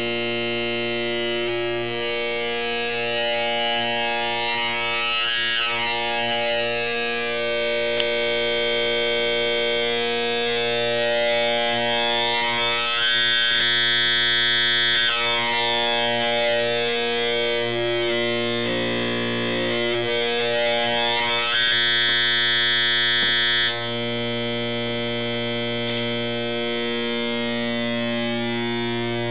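Square-like wave from a DIY 4093-based oscillator played through a simple TL071 op-amp voltage-controlled filter, holding one low steady note. Its overtones sweep up and down in slow waves as the filter knobs are turned, with a brief change in the tone about two-thirds through.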